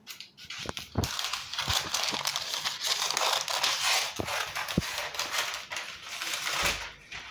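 Sheet of baking paper crinkling and rustling as it is pulled off the roll and cut, with a few sharp clicks in between.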